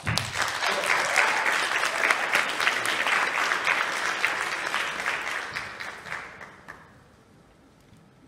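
Audience applauding: dense clapping that starts all at once, holds for about five seconds, then thins out and dies away about seven seconds in.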